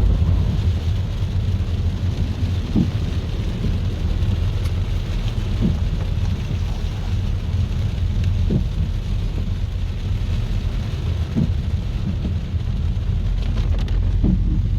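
Heavy rain hissing over a steady deep rumble, with a short soft stroke repeating about every three seconds.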